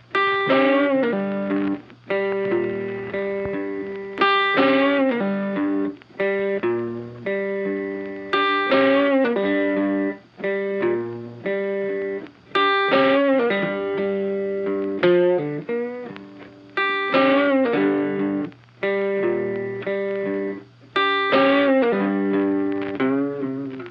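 Instrumental background music: a guitar picking a phrase of plucked notes that repeats about every four seconds.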